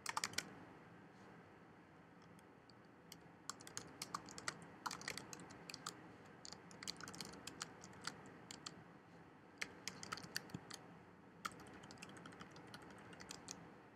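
Computer keyboard typing in irregular bursts of keystrokes, with a few keystrokes at the start and a pause of about two seconds before the typing picks up again.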